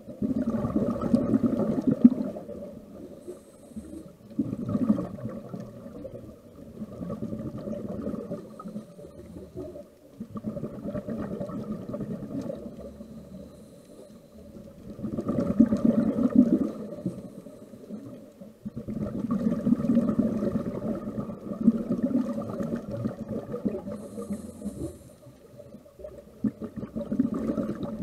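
Scuba diver's regulator breathing heard underwater: exhaled air bubbling out in repeated swells a few seconds apart, each fading before the next breath.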